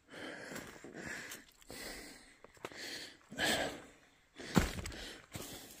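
A hiker breathing hard, about seven quick breaths in a steady rhythm while climbing down a rock ledge, with one sharp tap about four and a half seconds in.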